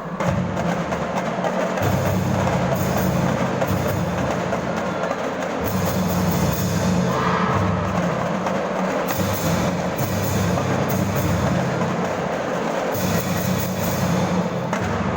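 A drum band playing: marching percussion with bass drums and snare drums keeping up a continuous rhythm.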